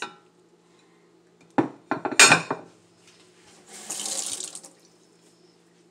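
A quick run of loud clattering knocks from about one and a half to two and a half seconds in, then about a second of kitchen tap water running.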